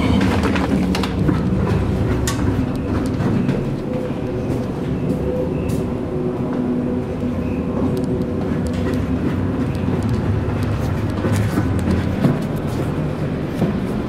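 Steady low rumble of a navy ship's machinery and ventilation, with faint steady hums and scattered clicks and knocks from footsteps and handling.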